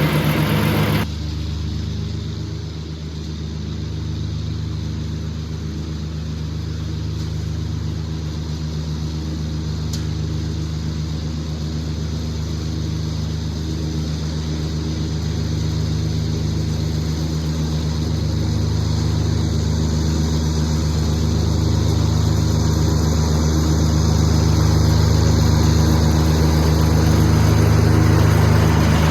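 Three-cylinder diesel engine of a Mahindra eMax 20 HST compact tractor running steadily at mowing RPM with the PTO-driven mower deck engaged. The higher hiss drops away abruptly about a second in, and the engine grows slowly louder toward the end.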